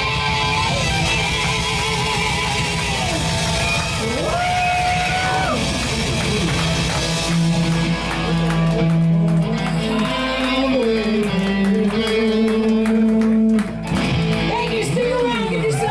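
Live hard rock band of distorted electric guitars, drums and a singer playing loud, with wide guitar and vocal pitch bends over held chords. From about halfway through, dense drum and cymbal hits pile up, as in the big closing run of the song.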